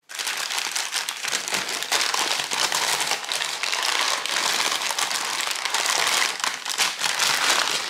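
Paper bag crinkling and rustling continuously as hands fold and press it, close and loud.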